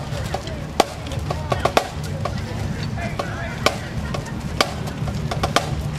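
Marching band drumline playing a cadence on the march: sharp drum and stick hits at uneven intervals, bunched close together in places.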